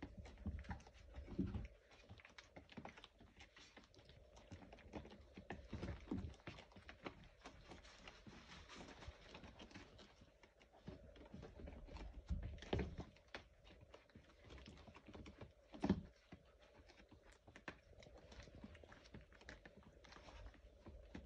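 Faint scratching and pattering of young Labrador puppies' paws and claws shuffling on a whelping pad, a run of small irregular clicks, with a few soft thumps and a faint steady hum underneath.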